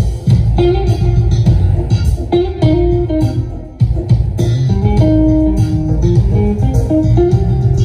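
Music led by electric guitar over heavy, booming bass, played loud through a large outdoor sound system of stacked subwoofer boxes and line-array speakers during a sound check.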